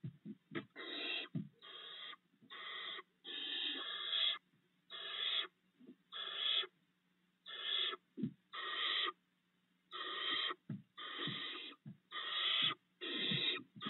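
Barn owl owlets giving repeated rasping hisses, their food-begging snore, each under a second long and about a dozen in all, with short low thumps in the gaps between them.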